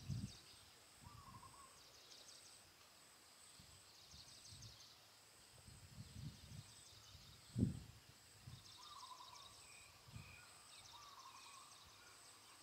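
Quiet woodland ambience: insects chirping in repeated pulses and a bird calling in short phrases, with a few low thumps, the loudest about eight seconds in. No engine is running.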